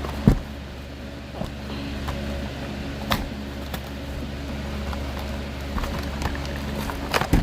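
Cookie packaging being handled and opened: scattered sharp crinkles and clicks, the loudest about a third of a second in and a cluster near the end, over a steady low hum.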